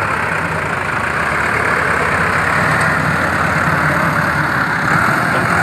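Tractor diesel engine running steadily under load while its front loader bucket pushes into a pile of wheat straw.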